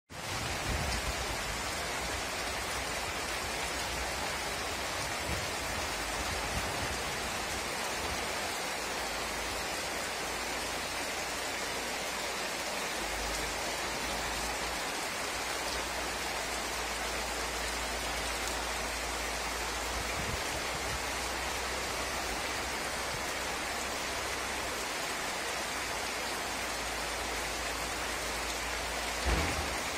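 Steady rain falling on the street and rooftops in a constant, even hiss, with a short thump near the end.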